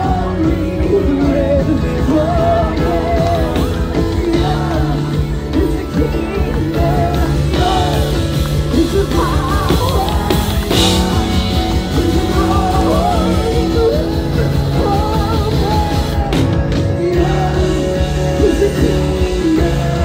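Upbeat rock-style worship song with a drum kit keeping a steady beat and many voices singing along, with some yells.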